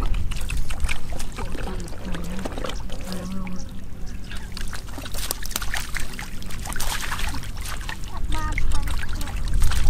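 Splashing and sloshing in shallow muddy water as stranded fish thrash and hands grab at them, a quick run of short wet splashes.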